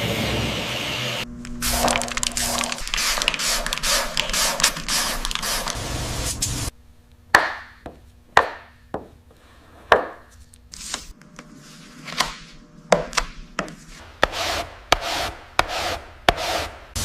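Bodywork being done by hand on a car: a dense scraping and rubbing at first, then, after a sudden cut, a string of sharp knocks roughly a second apart that come faster near the end.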